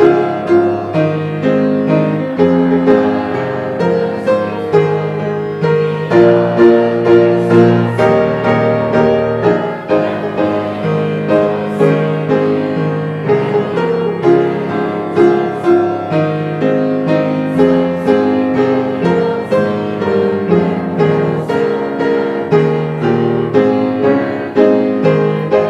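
Piano playing a hymn tune in chords and melody, with no singing.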